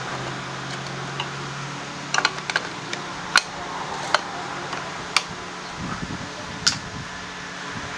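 Scattered sharp clicks and taps, like hand tools being set down or knocked against metal, several in quick succession about two seconds in and then single ones every second or so, over a steady fan hum.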